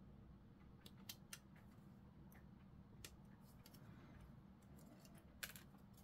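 Near silence with a handful of faint, short plastic clicks as a plastic model kit sprue is handled, the clearest near the end.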